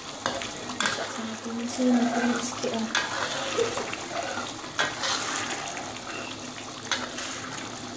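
Chili sambal with squid bubbling and sizzling in a wok as a spatula stirs it, the spatula knocking and scraping on the pan several times.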